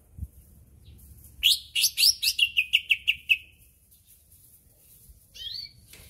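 Greater green leafbird (cucak ijo) singing: a loud, fast run of about a dozen repeated sweeping notes lasting about two seconds, then one short descending call near the end.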